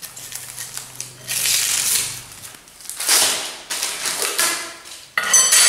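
Plastic wrapping crinkling as it is pulled off a bundle of steel tubes, in two long rustles. About five seconds in, the bare metal tubes clink together and ring.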